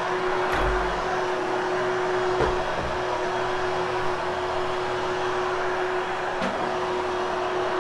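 Hoover HushTone upright vacuum running steadily over carpet, a continuous whir with one steady hum tone, post-vacuuming to groom and fluff the pile. A few light knocks come through about half a second, two and a half and six and a half seconds in.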